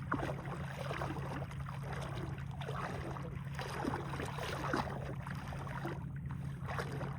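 Shallow saltwater splashing and sloshing irregularly, as when wading knee-deep through a flat, over a steady low hum.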